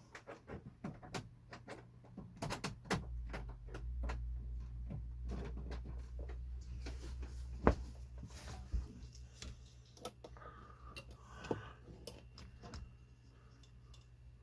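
Clicks and knocks of small items being handled and set down on a workbench, the sharpest knock a bit under halfway through. A low steady hum of a small extractor fan joins about three seconds in.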